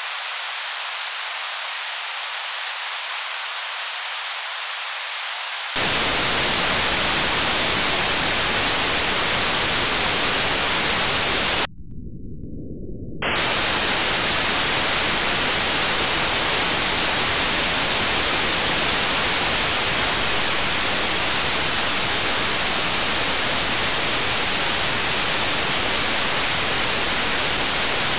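Static hiss from an RTL-SDR dongle's demodulated receiver audio, with no station programme coming through. The hiss is thinner and quieter at first. About six seconds in it steps up to a louder, fuller hiss, thins out briefly about twelve seconds in, then returns.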